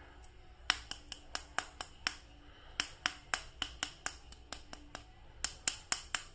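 A rapid, irregular series of sharp plastic clicks and taps, as a toy action figure and its packaging are handled, starting about a second in.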